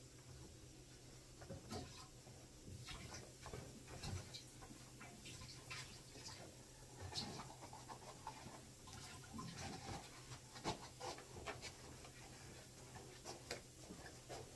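Faint scattered clicks and knocks as a plastic jug of liquid soap is handled and poured into a carpet shampoo machine's tank, over a low steady hum.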